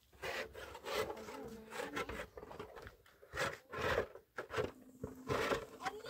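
Steel trowel scraping and stirring through wet plaster in a metal basin as the plaster is mixed: a run of uneven rasping strokes, one or two a second.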